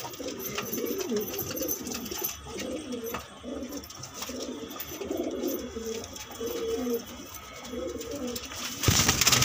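Domestic pigeons cooing in a loft, a string of low warbling coos one after another. Near the end there is a brief, loud burst of noise.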